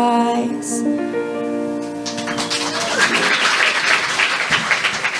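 A singer's last held note and the accompaniment's final chord die away, then an audience claps from about two seconds in.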